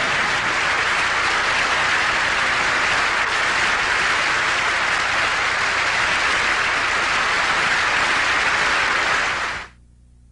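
Studio audience applauding steadily, then fading out quickly near the end.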